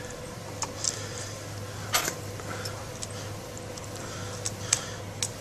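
A few scattered small clicks and taps as fingers handle a plastic screw-terminal connector and push a wire lead into one of its pin slots, over a steady low hum.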